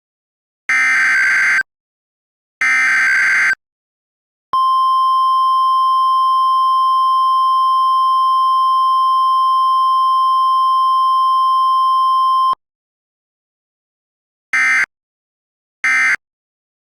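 Emergency Alert System broadcast signal. Two digital data bursts of the alert header, about a second each, are followed by a single steady attention tone held for about eight seconds. Two short data bursts come near the end.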